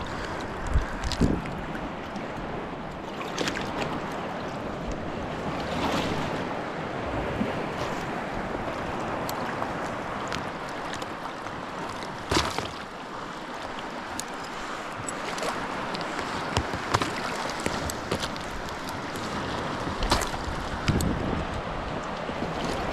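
Lake waves washing steadily on the shoreline, with wind on the microphone and a few sharp knocks scattered through, the strongest about halfway.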